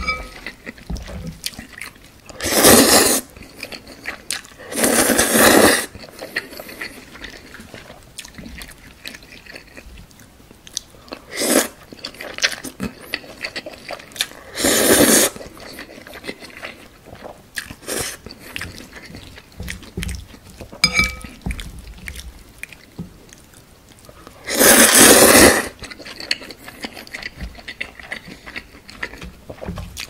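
Close-miked slurping and chewing of thick, chewy jjolmyeon noodles in spicy red-pepper sauce: about five loud slurps, each half a second to a second long, with wet chewing and mouth clicks in between.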